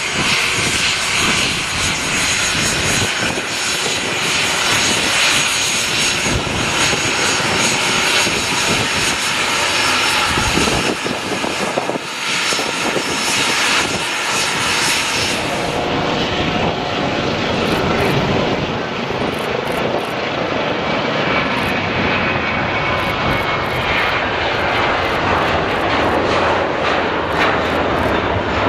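Engines of a small twin-engine business jet taxiing: a steady jet whine with hiss. A little over halfway through the sound changes abruptly to a Boeing 737-800's CFM56 engines at take-off power on the take-off roll, a steady loud engine noise.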